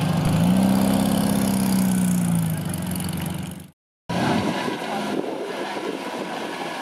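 Classic Volkswagen Beetle's air-cooled flat-four engine running as the car drives slowly past, its note rising slightly then falling away. After a sudden break, a second car's engine runs at low speed as it rolls up.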